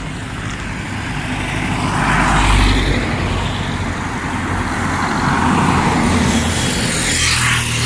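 Road traffic passing close by: cars and motorcycles driving past one after another, the engine and tyre noise swelling and fading several times over a steady engine drone.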